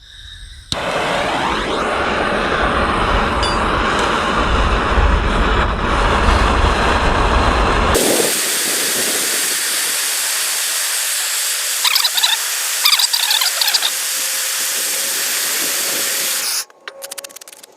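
Handheld gas torch burning with a steady hiss, heating a nail in an oak log red hot so the charred wood lets it pull out. A deep rumble under the hiss drops away about halfway through, leaving the higher hiss, and the sound cuts off suddenly near the end.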